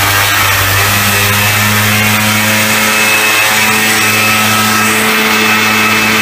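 Two-stroke ATV engine held at high, steady revs under load with its rear tyres spinning on concrete in a burnout; the pitch steps up slightly twice.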